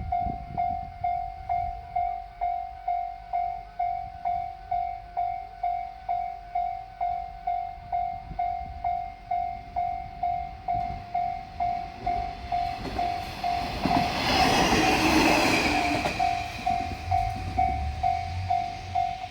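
Japanese railway level-crossing warning bell dinging steadily, a little over two strikes a second. About thirteen seconds in, a diesel railcar passes close: a loud rush with some high tones for a few seconds, then a low engine rumble, while the bell keeps ringing.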